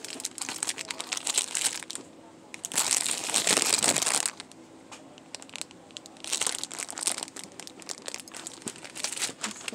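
Crinkling of plastic packaging being handled, in several bursts of crackling, the loudest lasting about a second and a half from about three seconds in.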